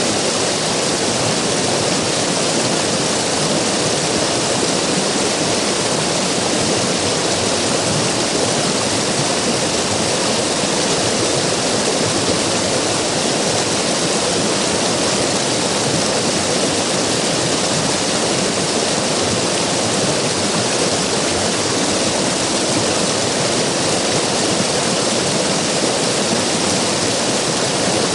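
River water rushing steadily, a continuous even roar of flowing water with no change.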